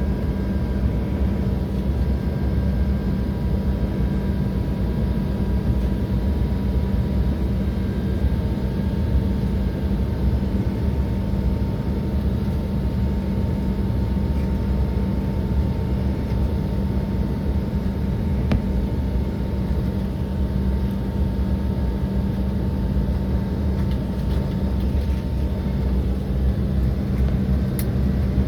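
Steady jet aircraft drone, heavy and low, with a faint steady whine that drops slightly in pitch about eight seconds in and fades near the end.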